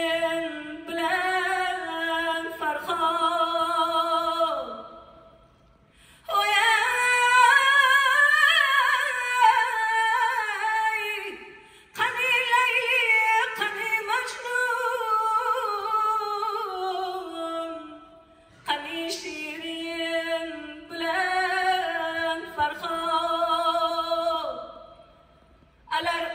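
Woman singing an Uzbek song solo into a microphone, with no instruments heard. She sings long phrases of held, wavering notes, with short breaks between them.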